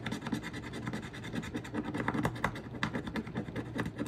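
A coin scratching the coating off a scratch-off circle on a paper sheet, in quick repeated rubbing strokes.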